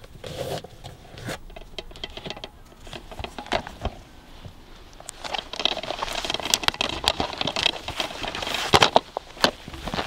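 Light rustling and clicks of a hand moving about under a car seat, then footsteps on grass with clothing rustling from about five seconds in, the steps loudest near the end.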